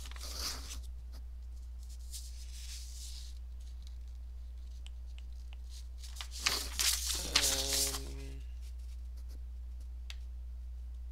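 Steady low electrical hum from the recording setup, with a few faint rustles and clicks. About six and a half seconds in comes a brief murmur from a man's voice, lasting under two seconds.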